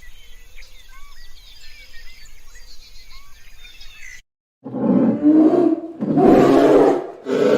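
Birds chirping quietly, then, after an abrupt cut, a series of loud, rough animal calls, each about a second long with short breaks between them.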